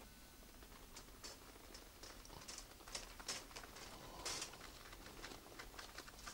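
Faint, irregular light clicks and crackles, a few each second, with the loudest about three and four seconds in.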